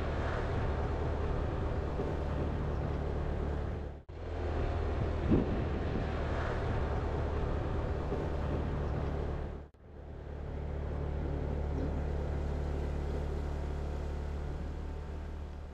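Steady engine hum and road noise from a vehicle driving along a paved road, with a short knock about five seconds in. The sound cuts off abruptly twice, at about four and about ten seconds, and fades out near the end.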